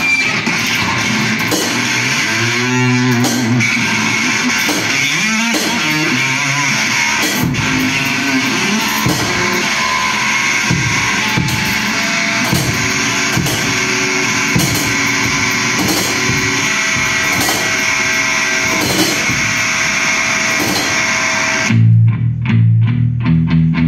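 Live instrumental music: an electric bass guitar played through effects pedals, with a drum kit, in a dense, noisy texture. Near the end the hiss drops away and loud, heavy low bass notes come in on a steady rhythm.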